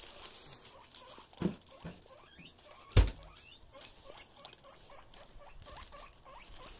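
Guinea pigs squeaking in short repeated calls, the eager food-begging of hungry guinea pigs, over the rustle of a plastic bag. Two knocks cut through, the louder one about three seconds in.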